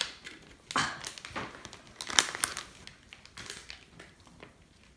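Small plastic spoon scraping and clicking against a thin plastic candy-kit tray as a sticky, gluey candy mix is stirred, in scattered short strokes.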